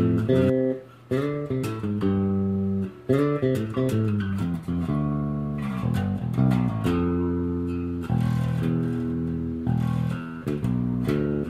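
Five-string electric bass with its stock bridge, played through an Ampeg Micro VR amp into two-by-twelve cabinets with the tone controls set flat. It plays a bass line of plucked notes, some of them held, with two short breaks in the first three seconds.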